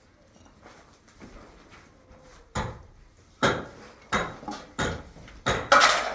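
A series of sharp knocks, about one every 0.7 seconds, starting about two and a half seconds in and growing louder.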